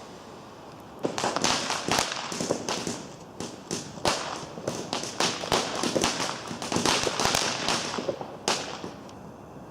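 Fireworks going off in a rapid run of crackling pops and small bangs. It starts about a second in and thins out near the end.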